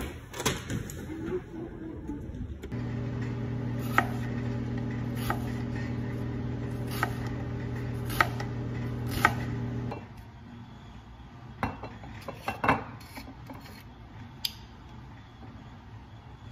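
A door's metal push bar clunks as a glass door is pushed open. Then a kitchen knife slices through an onion, knocking on the cutting board about five times, each a second or more apart, over a steady low hum that stops about ten seconds in. After that come a few light knocks and clinks as a glass bottle and dish are handled.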